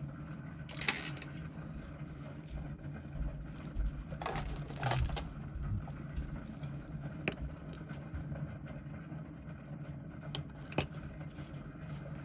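A few light clicks and scrapes of small metal tools and watch parts being handled, spaced several seconds apart over a steady low hum.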